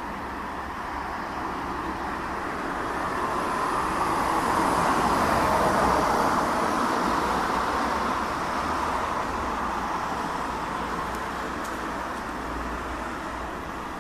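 Distant jet airliner passing overhead: the broad rumble of a Boeing 777-300ER's GE90 turbofans swells to a peak about halfway through, then slowly fades away.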